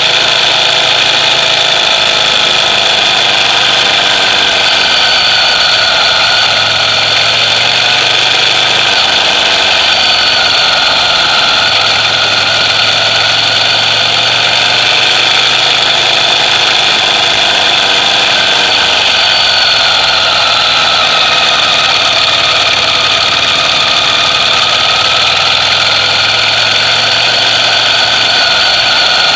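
Ducati Monster EVO's L-twin engine idling steadily through its stock exhausts, with only slight wavering in pitch and no revs.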